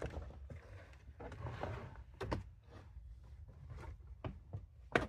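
Light clicks and knocks of plastic car-interior parts and seatbelt hardware being handled, a few scattered ones with the sharpest just before the end.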